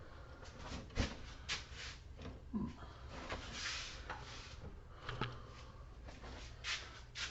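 Handling noise: scattered knocks, clicks and rustling as things are moved about by hand, with the sharpest knock about a second in.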